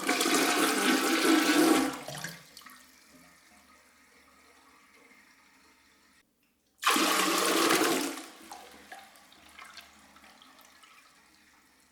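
Two toilet flushes. The first, already running, rushes loudly until about two seconds in, then fades to a faint trickle. A second flush starts abruptly about seven seconds in, rushes loudly for about a second, and drains away.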